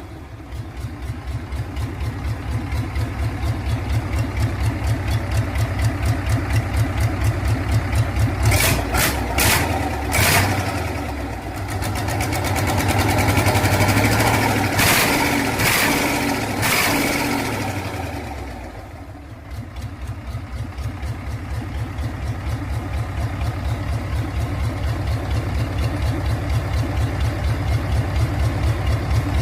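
RF8 engine running with an even, rapid pulse of firing strokes. It speeds up and gets louder in the middle, drops back briefly after about 19 seconds, then builds up again. A few sharp clacks come near the middle, around 9 to 10 seconds and 15 to 17 seconds in.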